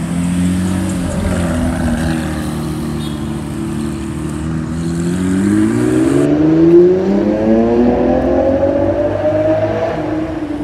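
Lamborghini V12 supercar engine running low and steady, then climbing in pitch over about five seconds as the car pulls away and accelerates.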